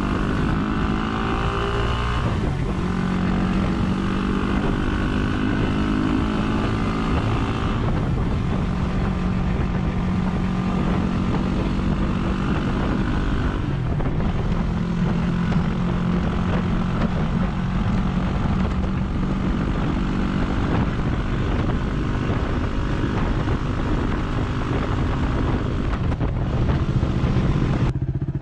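Yamaha WR250R's single-cylinder four-stroke engine running as the bike rides down the road, under a steady rush of wind noise. The engine note changes a few times in the first half, then holds steady.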